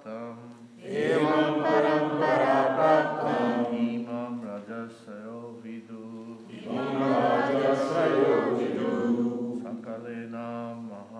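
Call-and-response chanting of a Sanskrit verse: a group of voices repeats a line in unison, one man's voice chants the next line, and the group repeats it, a second time.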